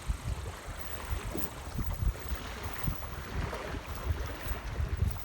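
Wind buffeting the microphone in irregular low gusts over a steady hiss.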